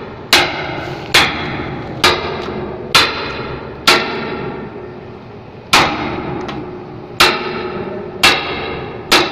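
Hammer striking a manual impact screwdriver set to loosen, working a stuck screw free. About nine sharp blows, roughly one a second with a longer pause midway, each leaving a short metallic ring.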